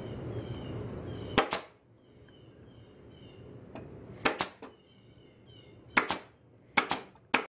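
Senco pneumatic stapler firing staples into wood strips: five sharp cracks spaced a second or two apart, each a quick double snap.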